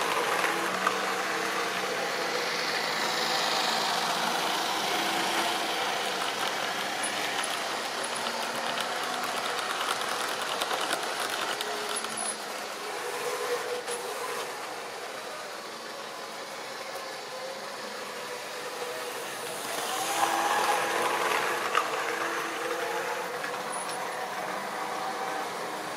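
Model railway trains running on the layout: a steady whirr of small electric locomotive motors with wheels clicking over the rail joints. It swells near the start and again about twenty seconds in, as a train passes close by.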